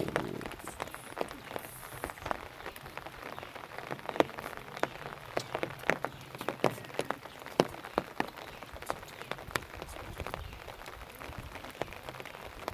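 Water splashing and dripping in many small, irregular splashes over a steady low hiss.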